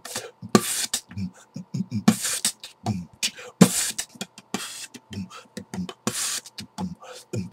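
Vocal beatboxing: a person making short, low kick-like thumps with the mouth, broken by a hissing snare-like burst about every second and a half.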